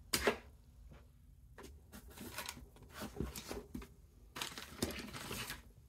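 Hand tools being rummaged through in a pile: a few light knocks and rustling, with a longer scraping rustle near the end.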